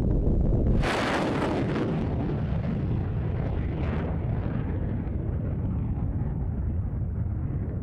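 Jet aircraft engine noise: a deep, steady rumble with a loud hissing roar that comes in about a second in. The hiss then eases and grows steadily duller as the jet moves away.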